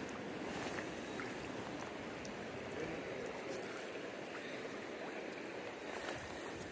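Shallow mountain stream running over rocks: a steady, even rush of water, with a few faint clicks of handling.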